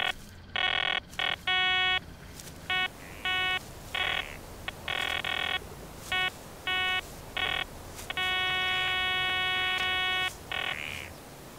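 Metal detector's audio signal: a buzzy electronic tone that sounds in about a dozen beeps of uneven length as the search coil sweeps over grass, then holds steady for about two seconds from about eight seconds in, the sign of metal under the coil.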